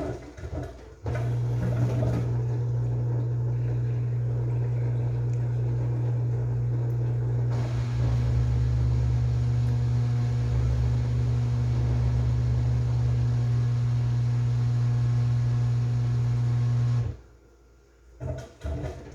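Washing machine motor running with a steady low hum, starting suddenly about a second in and cutting off suddenly near the end. A few short knocks come just before it starts and after it stops.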